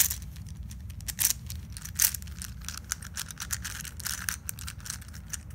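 Meffert's Professor Pyraminx, a plastic twisty puzzle, being turned by hand: a quick run of clicks and clacks as its layers rotate, with louder clacks about one and two seconds in.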